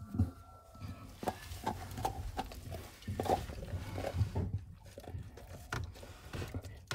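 German Shepherd growling low while gnawing a bone, with clicks and crunches from her teeth: food aggression, guarding the bone from the owner's hand on her head.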